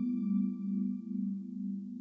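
Meditation music ending on a struck, bell-like tone that rings and fades away. Its higher overtones die first, and a low, slowly pulsing hum lingers.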